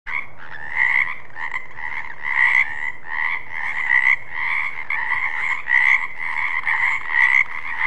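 A chorus of frogs croaking: overlapping calls repeating about twice a second over a steady background of other calling frogs.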